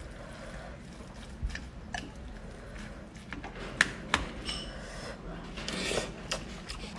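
Eating sounds: chewing, with a few sharp clicks of a utensil against a dish.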